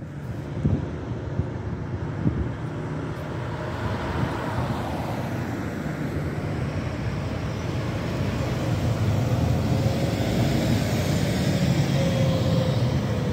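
City bus diesel engine running as a bus drives along the street, a steady low drone that grows louder in the second half with a faint whine near the end. A few knocks come in the first couple of seconds.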